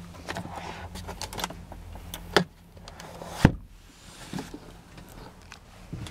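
Handling noise from a handheld camera being moved about inside a car: light clicks and rubbing, with a sharp knock about three and a half seconds in as the loudest sound, over a steady low hum.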